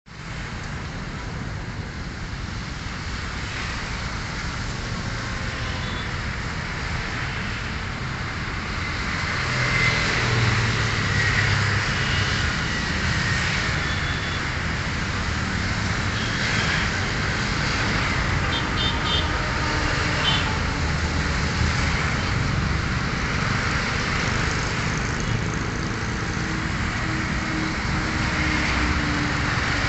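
Steady distant engine rumble, swelling about nine seconds in and staying up.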